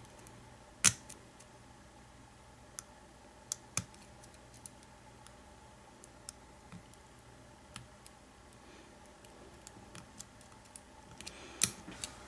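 Scattered sharp metallic clicks of a hook pick and tension bar working the pin stack of an American 700 series padlock, with louder clicks about a second in and near the end.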